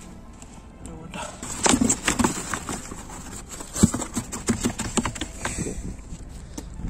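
Irregular knocks, slaps and rustles as a freshly caught fish is handled and put into a foam cooler box, with a cluster of loud taps about two seconds in and one sharp knock near the middle.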